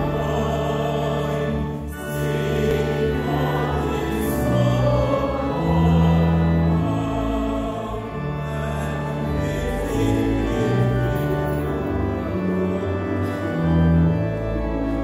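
Choir and congregation singing an entrance hymn to instrumental accompaniment, with long held bass notes under the voices.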